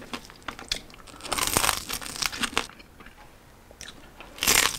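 Crunching bites into the crispy crackling skin of roasted pork belly (liempo), with chewing between them. The crunches come in irregular clusters, the loudest near the end.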